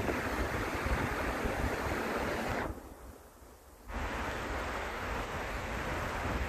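Steady rushing outdoor noise, mostly wind buffeting the microphone, with a deep rumble. It drops away for about a second midway, then returns at the same level.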